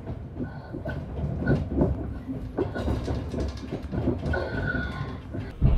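Electric train heard from inside the carriage, pulling out of the station: a steady low rumble with irregular knocks and clatter from the wheels over points and rail joints, and a few brief high squeals.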